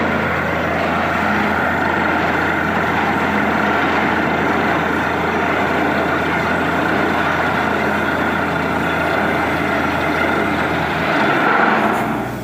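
Borewell drilling rig running, its compressed air blowing a steady gush of water and rock cuttings up out of the bore against a sack held over the mouth. This is the sign that the bore has struck water. The rush swells briefly near the end and then drops.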